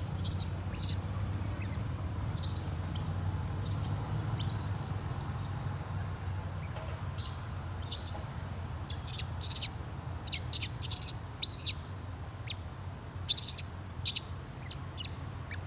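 A series of short, high-pitched chirps from a small animal, coming thicker and louder about two-thirds of the way through, over a steady low hum.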